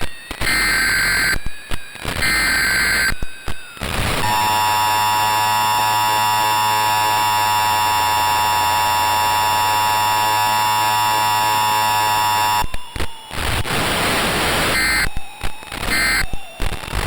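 Emergency Alert System tones: three short screeching data bursts, then about eight seconds of the steady, harsh two-tone attention signal, then static noise broken by more short data bursts near the end.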